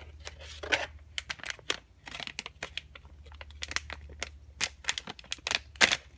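Plastic blind-bag packet crinkling and being torn open by hand: a run of irregular sharp crackles.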